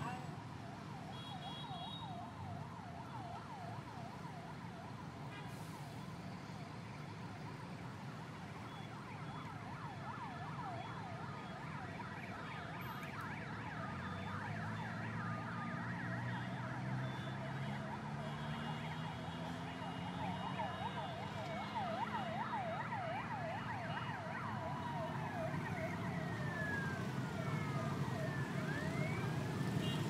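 A siren warbling quickly up and down over road traffic, with vehicle engines rising in pitch around the middle.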